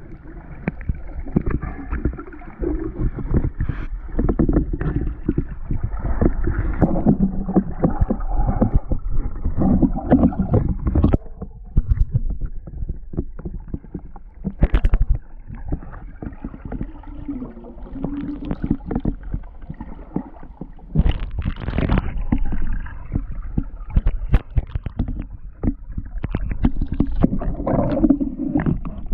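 Muffled underwater sound of sea water rushing past a submerged action camera in its waterproof housing: a dense low churning with many irregular knocks and clicks against the housing. Near the end the camera breaks the surface in a splash.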